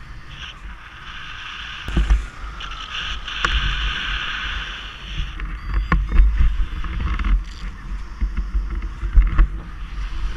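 Wind rushing and buffeting over a paraglider's camera microphone during launch, with gusty low rumbles. A few sharp knocks from the harness and lines against the camera.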